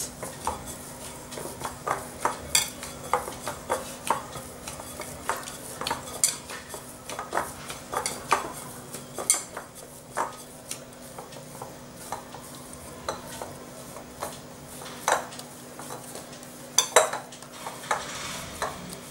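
Hands kneading soft, risen yeast dough in a glass bowl: irregular soft knocks and clicks, one or two a second, as the dough is pressed and turned against the bowl, over a steady low hum.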